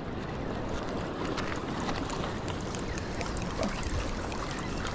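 Steady noise of moving water and wind, with a few faint ticks scattered through it.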